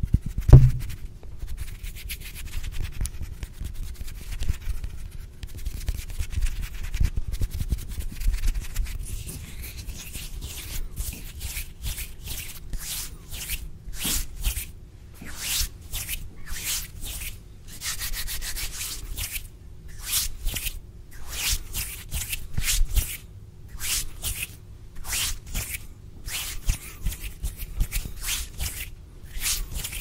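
Hands rubbing close to a microphone: fingers brushing over the mic grille with a low rumble and a loud knock about half a second in, then quick crisp rubbing strokes of fingers and palms in a fast, uneven rhythm through the second half.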